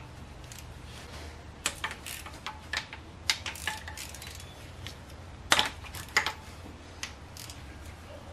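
Ratchet and socket clicking and clinking in short irregular bursts as the water pump's 10 mm bolts are cracked loose.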